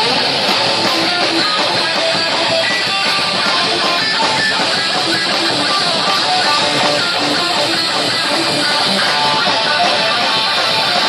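Heavy metal band playing loud, dense distorted electric guitar riffs in a passage without vocals.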